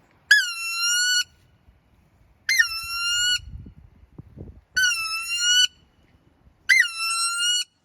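Four loud, high squealing whistle calls, each just under a second long and about two seconds apart. Each opens with a quick upward flick, then holds a nearly steady pitch.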